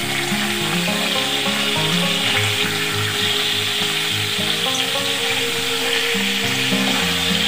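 Ridge gourd pieces sizzling in hot mustard oil in a metal kadai, stirred and turned with a metal spatula. The sizzle is a steady hiss throughout.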